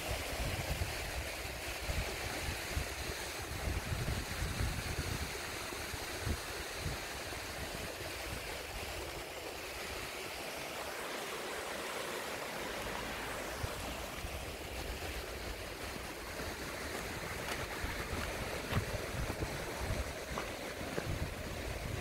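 Mountain stream running over rocks and spilling from a small stone weir, a steady rushing hiss. Wind buffets the microphone in low gusts during the first several seconds and again near the end.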